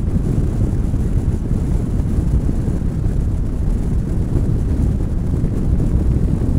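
Steady low rumble of wind buffeting a camera microphone mounted on the outside of a moving car, mixed with the car's road noise.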